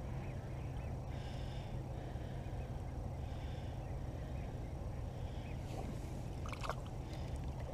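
Soft sloshing of water as a large walleye is held by the tail at the surface beside the boat to revive it, over a steady low hum.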